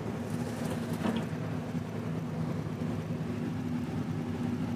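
Steady low mechanical hum from an unseen machine or engine, with a faint click about a second in.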